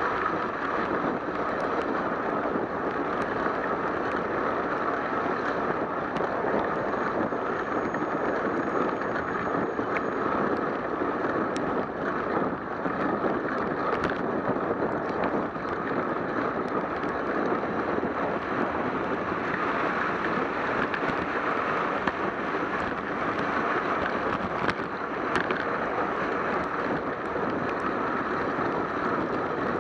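Steady road-and-wind noise of a bicycle riding through the rain on wet pavement: tyres hissing on the soaked road and wind over the camera, with a few faint ticks.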